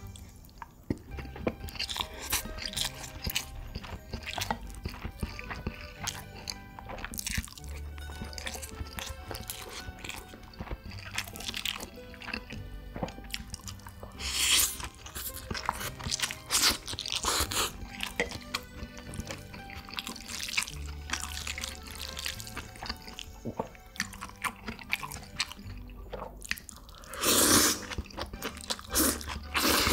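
Close-miked chewing and crunching of food over steady background music, with a few louder noisy bursts about halfway through and near the end.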